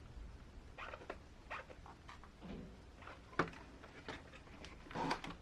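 Faint scattered clicks, taps and light scraping of hands handling an RC crawler's plastic wheels and tires.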